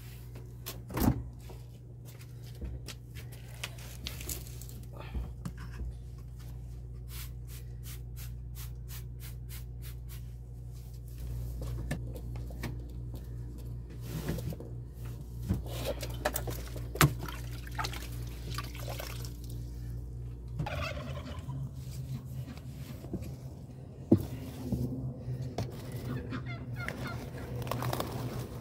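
Steady low electrical hum of basement refrigerators running, with clicks, knocks and quick repeated strokes as shelves and drawers are handled and wiped. After a cut about 20 seconds in, the hum gives way to outdoor sounds with turkeys gobbling and sharp knocks from garden work.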